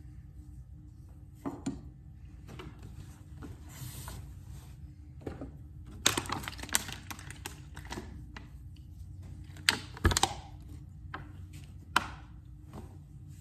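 Knife blade being worked on a sharpening stone: irregular scraping strokes with several sharp clicks of steel against stone, loudest from about six seconds in to about ten seconds in.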